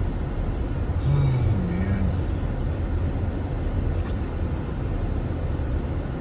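Steady low rumble of a car's tyres and engine, heard from inside the cabin while driving slowly on a snow-covered road. A short voiced murmur comes about a second in.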